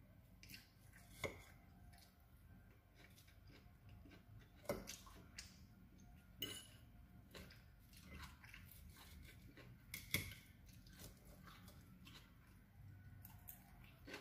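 A fork clinking and scraping in a salad bowl, with soft chewing of crunchy salad between; three louder clinks stand out, about a second in, near five seconds and about ten seconds in.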